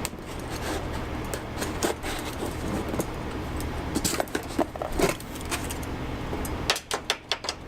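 Cardboard shipping box being opened with a box opener: scraping, rustling and clinking as the box is cut and the packing is handled, with a quick run of sharp clicks near the end.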